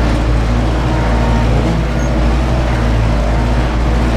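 Ursus 914 tractor's diesel engine running steadily under load at about 1700 rpm while pulling a disc harrow, heard from inside the cab.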